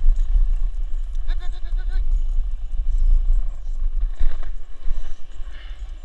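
Skateboard wheels rolling over the road surface, a steady low rumble, with a sharp knock about four seconds in.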